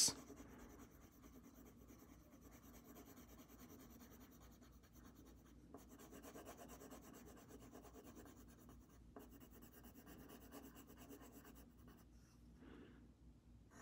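Coloured pencil shading on paper: faint, steady scratchy rubbing as the pencil colours in an area.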